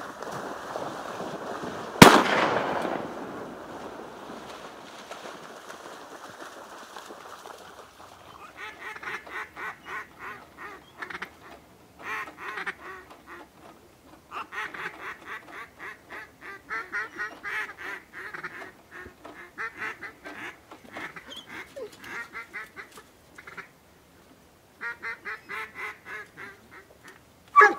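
A single shotgun shot about two seconds in, echoing across the water and fading over several seconds. From about eight seconds on, ducks quacking in quick runs of many calls with short gaps between runs, and another sharp bang at the very end.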